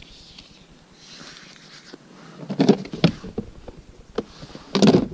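Hands handling a clear plastic storage box and its lid: a few light clicks and rustles about two and a half seconds in, then a louder plastic clatter near the end as the lid comes off.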